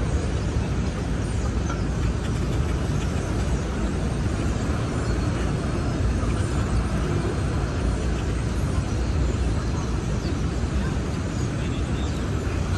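Steady city street traffic noise: a constant low hum of passing vehicles with no single event standing out.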